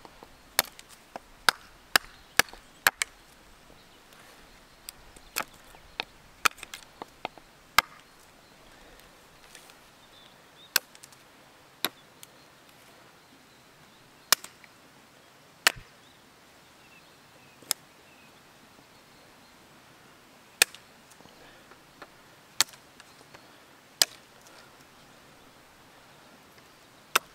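Hatchet chopping side branches off a fallen branch: a long run of sharp strikes into wood, several in quick succession at first, then spaced out a second or more apart.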